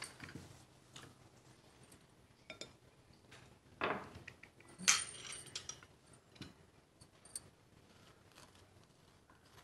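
Breakfast-table sounds: sparse clinks and taps of silverware against china and glass, with one sharper ringing clink about five seconds in.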